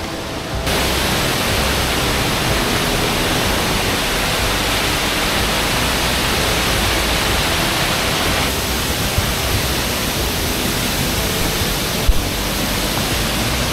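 Rushing water of a waterfall or creek cascade heard close up: a loud, steady, even roar across all pitches, with one short knock near the end.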